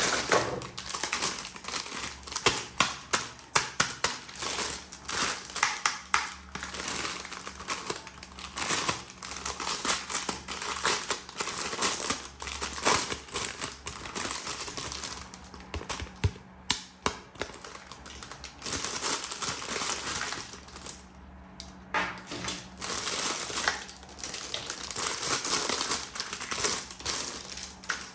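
Plastic packaging crinkling and hard plastic toy parts clicking and tapping as a toy weapon set is unwrapped and handled, in dense, irregular clusters.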